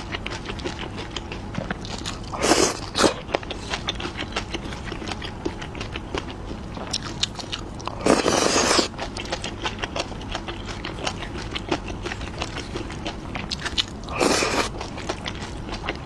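Close-miked eating: steady chewing with many small wet mouth clicks, broken by three louder bursts of bites or slurps a few seconds apart.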